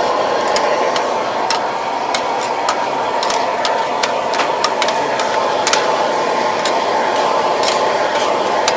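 Metal spatula clanking and scraping against a wok while stir-frying squid and noodles, with irregular sharp strikes a few times a second over a steady loud hiss.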